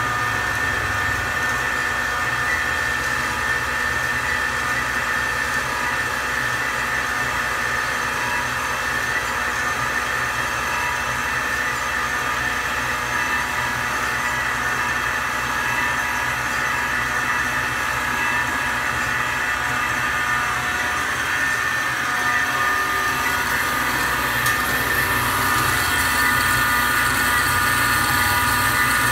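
DoAll C-305A automatic horizontal band saw running steadily, its machinery giving a constant mechanical hum with a high whine. It grows slightly louder and hissier near the end.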